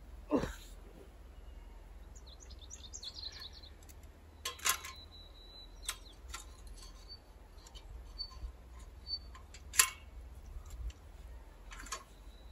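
Small birds chirping in short high notes, with a few sharp knocks scattered through, the loudest about ten seconds in.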